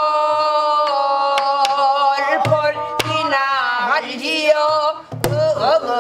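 A woman singing in Korean pansori style, drawing out long held notes with wide wavering vibrato and sliding ornaments. Strokes on a buk barrel drum accompany her: a few light taps in the first seconds, then deep hits about two and a half seconds in, at three seconds, and near the end.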